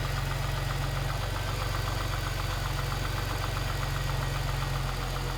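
2000 Jaguar S-Type's 3.0-litre V6 idling steadily with a fast, even rattle over the engine note: the sign of a loose timing chain.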